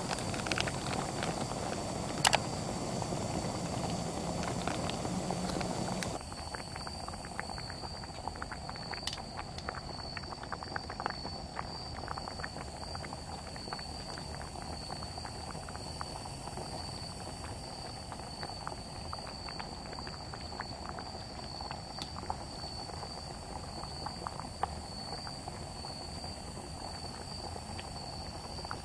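Pot of beef-bone and mushroom soup simmering on a camp stove, with many small bubbling pops and clicks; it is louder for the first six seconds or so. A steady high-pitched tone runs behind it.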